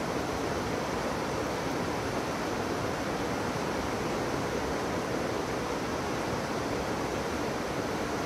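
Rapids of a fast mountain river rushing steadily, an even, unbroken wash of white water.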